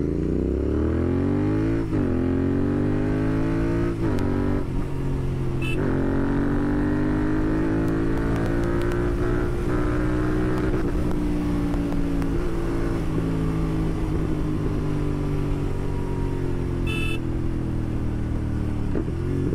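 Royal Enfield Continental GT 650's parallel-twin engine through a Red Rooster Performance slip-on exhaust, pulling up through the gears: the pitch climbs and drops at shifts about two, four and six seconds in. It then holds a steady cruise, with a short dip near the end.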